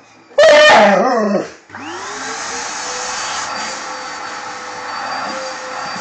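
A husky-type dog gives one loud, wavering howl-like call of about a second. Then the vacuum cleaner is switched on, its motor whining up to speed and running steadily through the hose.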